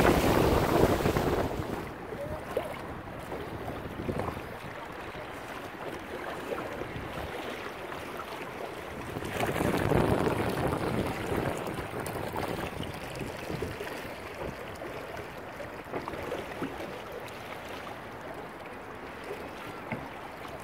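Water rushing and splashing along the hull of a Laser Pico sailing dinghy under way, with wind buffeting the microphone. The sound is loudest in the first couple of seconds and swells again about ten seconds in.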